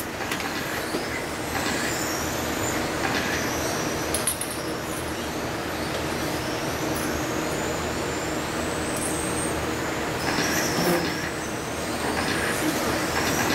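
Several 1/10-scale electric radio-controlled touring cars racing on a carpet track, their motors whining high and gliding up and down in pitch as they accelerate and brake, over a steady rush of noise.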